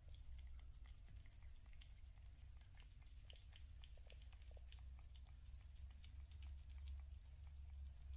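A cat chewing food: faint, quick, irregular clicks of its teeth on the food.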